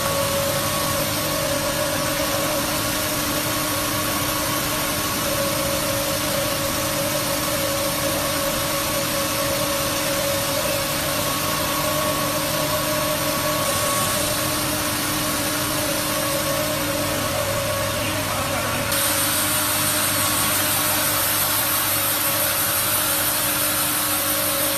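Vertical plastic colour mixer running: a steady machine hum with a few held tones over a hiss of tumbling plastic granules. About three-quarters of the way through, the hiss becomes louder and brighter as granules pour out through the discharge chute.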